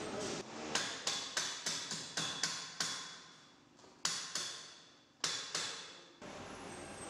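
Hammer blows on a metal tube clamped in a bench vise, with a ringing metallic tail after each strike: a quick run of about seven blows, then after a pause two more pairs.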